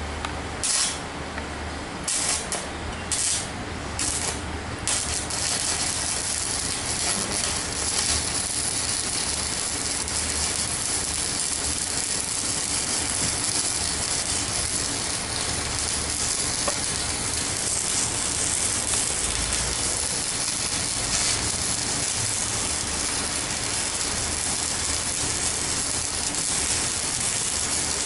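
Stick arc welding with a 4 mm electrode on a CNR 120 welding machine: a few short crackles as the arc is struck and breaks in the first five seconds, then a steady crackling hiss as the rod burns.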